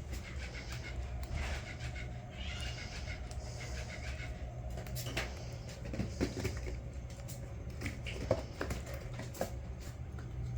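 Six-week-old kitten with a cleft palate eating wet food from a syringe: soft puffs of breath and scattered small smacking and licking clicks, without snorting or sneezing.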